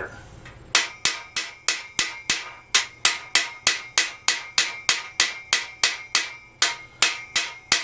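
Small hammer striking a pin in the steel frame of a Black & Decker Workmate 225 in rapid, steady blows, about three to four a second, starting about a second in. Each blow is loud and leaves a metallic ring.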